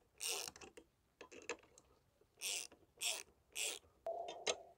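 Ratchet wrench worked in short strokes, tightening the nuts on a pole-mount bracket: several separate bursts of ratchet clicking with single clicks between them.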